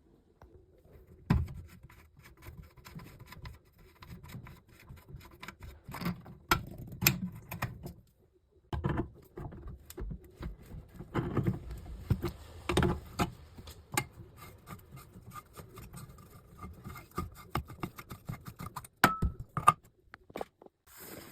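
Irregular clicks, knocks and rattles of hard objects being handled, with some scraping and a brief squeak near the end.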